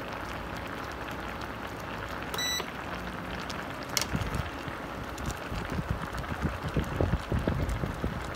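Chicken adobo simmering in a stainless steel pot, the sauce bubbling steadily. About two and a half seconds in comes a short electronic beep; at about four seconds a sharp click, then a run of low knocks as a spoon is worked in the pot.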